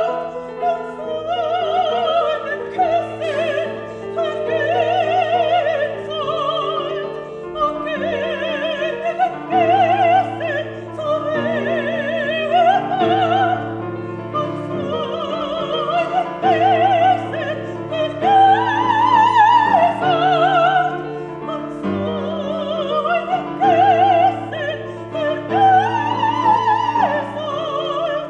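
Operatic soprano singing with wide vibrato over grand piano accompaniment, a classical art-song or zarzuela performance. Two long high notes come about two-thirds of the way through and near the end, and the voice breaks off right at the end, leaving the piano.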